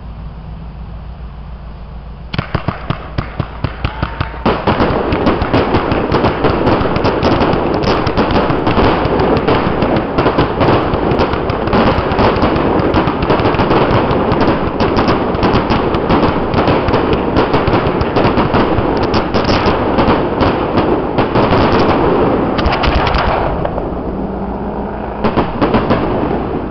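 Aerial fireworks display: a fast run of sharp pops starts about two seconds in and grows into a dense, unbroken string of bangs from bursting shells lasting about twenty seconds. It thins out near the end, then one last short flurry.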